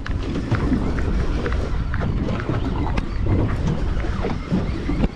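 Wind buffeting the microphone over water sloshing against the boat's hull, with scattered light clicks from a conventional fishing reel being cranked as a fish is reeled in.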